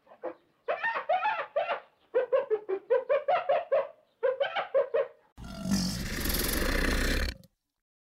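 Spotted hyena giggling: repeated runs of short, quick high-pitched notes, several a second. About five seconds in, a harsh, noisy sound lasting about two seconds takes over.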